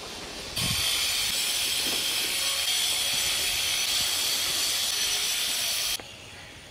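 A steady high hiss that comes in suddenly about half a second in and cuts off suddenly near the end.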